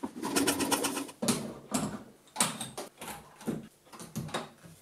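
Cordless drills being set one after another into the slots of a plywood holder: plastic drill housings knocking and clattering on the wood, a quick cluster of clicks in the first second, then about two separate knocks a second.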